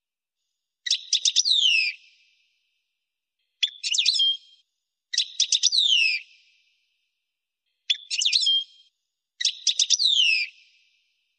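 European goldfinch singing: five short, quick phrases of rapid twittering notes and falling whistles, each about a second long and separated by pauses.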